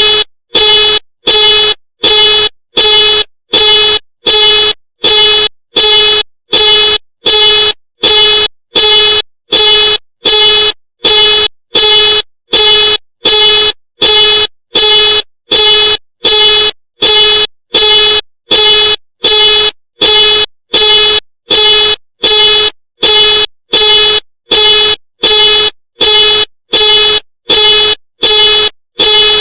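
A Ford car alarm sounding the car's horn in even, identical honks of one steady pitch, about one a second, repeating without change.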